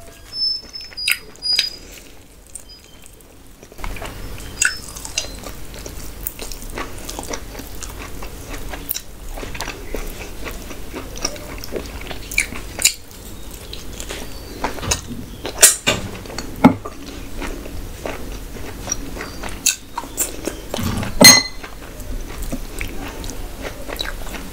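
Close-up chewing and biting of mutton curry and rice eaten by hand: wet mouth clicks and smacks, dense from about four seconds in, with a few sharper, louder clicks.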